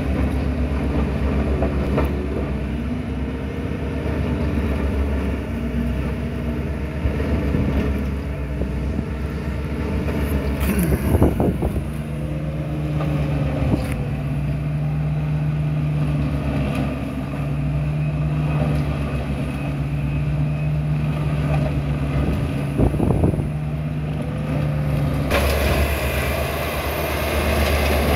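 Diesel engines of a wheel loader and a Willibald MiniShark mobile shredder running steadily, with slow swells in engine pitch and a couple of sharp knocks. Near the end the sound becomes fuller and louder as the loader's bucket of branches reaches the shredder.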